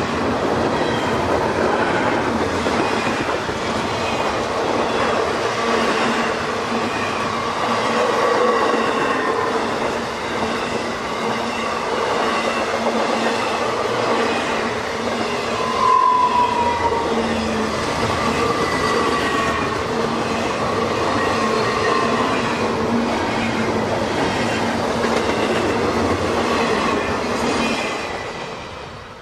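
Norfolk Southern intermodal freight train rolling past, its double-stack container cars and then trailer-carrying flatcars running on the rails in a steady, loud rumble. Thin wheel squeals rise and fall throughout. The sound drops away near the end as the last car passes.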